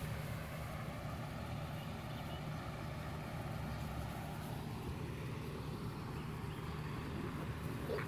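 Steady low background rumble, with a brief higher-pitched sound near the end.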